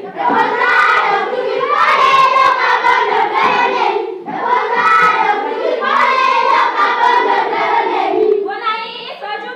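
A group of children singing a church song together as a choir, in phrases with short breaks about four seconds in and near the end, with scattered hand claps.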